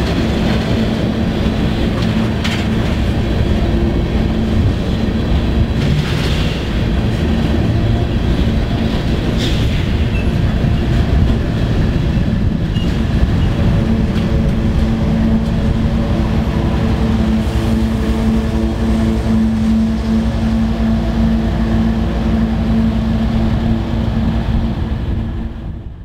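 An empty coal train's hopper cars rolling past with a steady rumble of steel wheels on the rails. About halfway through, a diesel locomotive at the rear of the train goes by and adds a steady engine hum. The sound fades out at the very end.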